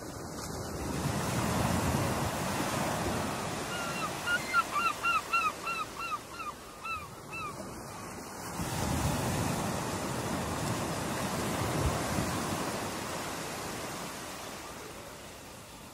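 Ocean surf breaking, rising in two long rushes of wave noise. Between them a bird calls a quick run of about a dozen short, hooked notes, roughly three a second.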